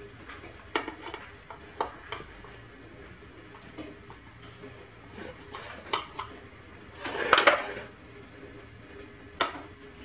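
Serrated knife sawing through a crusty, sesame-topped brioche, with several sharp taps and clicks as the blade meets the plate beneath. The loudest is a longer crackling scrape about seven seconds in.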